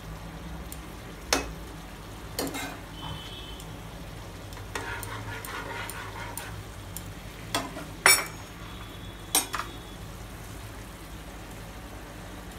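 Gravy sizzling in a frying pan while a metal spatula stirs the gobi Manchurian balls, knocking against the pan in about five sharp clicks, the loudest about eight seconds in.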